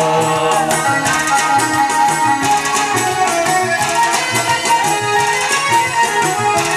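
Instrumental break in a traditional Arabic wedding song: a sustained melody line is played over a steady drum beat, with no singing.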